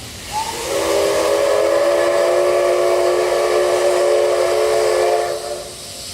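Steam locomotive whistle blown in one long blast of about five seconds, opening with a brief upward chirp and cutting off near the end, over steady steam hiss.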